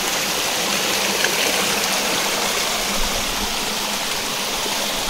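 Small mountain stream cascading in little waterfalls over mossy rocks: a steady splashing rush of running water.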